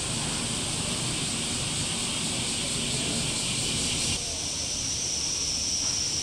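Cicadas droning in a steady, high-pitched chorus. About four seconds in, the sound narrows to a single steadier, piercing whine.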